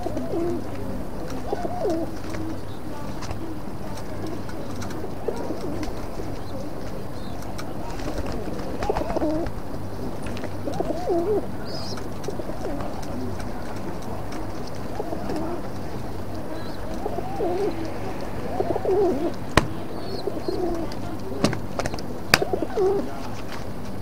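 Pigeons cooing repeatedly, low throaty calls rising and falling in pitch. A few sharp clicks come near the end.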